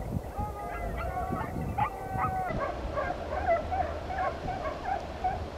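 A pack of hunting hounds baying and yelping on the trail of a wild boar: many short, high, repeated calls, several a second, with a few longer drawn-out bays.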